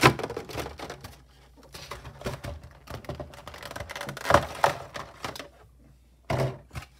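Clear plastic tray insert of a card collection box being handled and set down: irregular clicks, knocks and crinkles, loudest right at the start and again about four seconds in.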